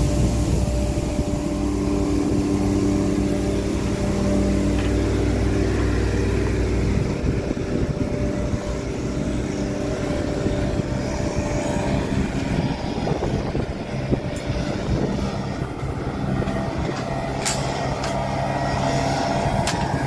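Engine machinery running on a construction site. A steady engine drone for about the first seven seconds gives way to a rougher, mixed engine noise, and a few sharp knocks come near the end.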